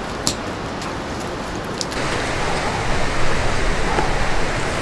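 Steady rushing noise with no clear source, with a couple of light clicks near the start; about two seconds in it turns fuller and a little louder.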